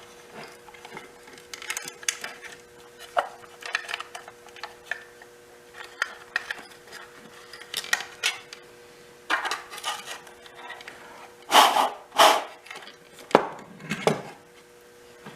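Irregular clicks, rustles and clatters of wires and small metal parts being handled while wiring an electrical control box, with two louder clatters about twelve seconds in and sharp knocks just after. A faint steady hum sits underneath.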